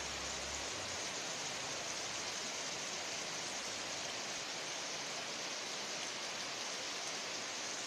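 Heavy rain pouring steadily on trees and garden foliage, an even hiss.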